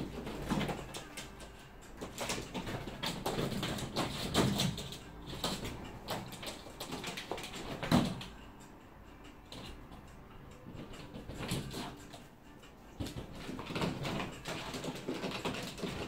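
Small hake brush swishing and scratching across watercolour paper in irregular strokes, with a sharp click about eight seconds in.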